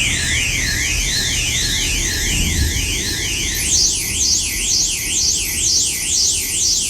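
Electronic emergency alert alarm tone: two pitches sweep up and down against each other, crossing about twice a second, and jump to a higher register a little past halfway.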